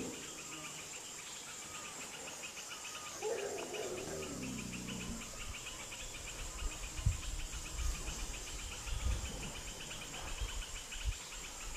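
Insects chirping in a steady, rapid, even pulse, with a brief lower call that falls in pitch about three seconds in and a few soft low thumps later on.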